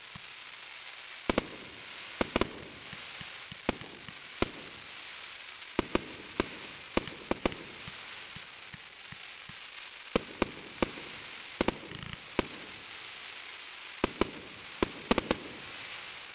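TXB500 Crackling Willow fireworks cake firing: a dense, steady crackle of willow stars, with sharp bangs going off in quick clusters every second or two. It stops suddenly at the end as the cake finishes.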